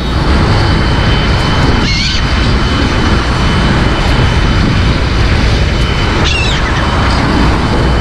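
Gulls calling twice, short bending calls about two seconds in and again about six seconds in, over a steady loud rumbling background noise.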